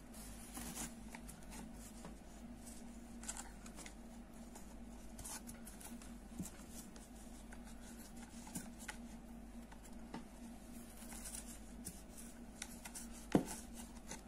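Soft rustling and small clicks of hands working a crochet hook through yarn close to the microphone, with one sharper click near the end. A faint steady hum runs underneath.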